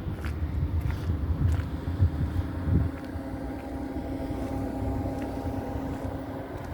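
Steady hum of a motor vehicle engine running for several seconds, over an uneven low rumble of wind on the microphone.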